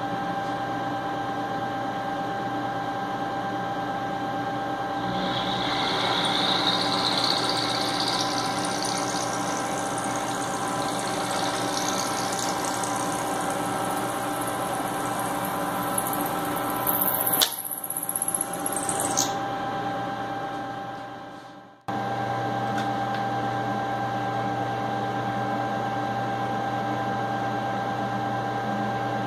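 Milling machine running steadily with a motor hum. From about five seconds in, a high-pitched cutting sound rises in pitch as the cutter works the metal jaw block, ending with a couple of sharp clicks. Near the end the sound fades and drops out for a moment, then the steady running resumes.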